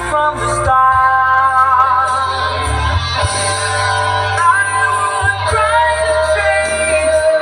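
A recorded song: a female voice singing long, wavering notes over a steady bass line.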